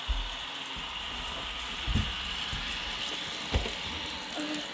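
Ecovacs Deebot N79 robot vacuum running over scattered rice: a steady motor and fan hiss with rice grains rattling, and three short knocks.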